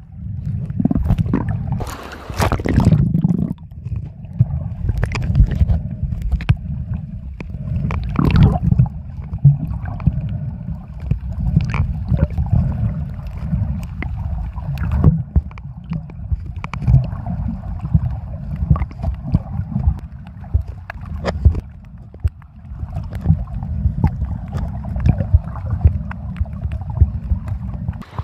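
Muffled underwater sound from a camera held below the surface while snorkeling over a coral reef: a low rumble of moving water dotted with sharp clicks and crackles. There is splashing in the first few seconds.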